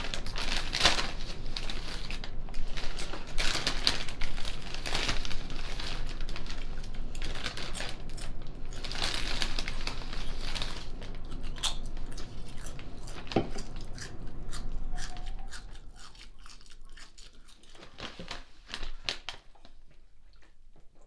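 Crinkling and rustling of paper or plastic packaging being handled, dense and continuous, thinning out about two-thirds of the way through to a few scattered light clicks.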